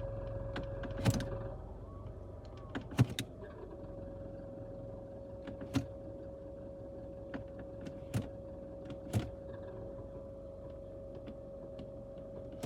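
2014 Nissan Altima running in gear with irregular clicking and knocking rattles over a steady engine hum. The rattle comes only when the car is in gear, and the owner places it on the passenger side.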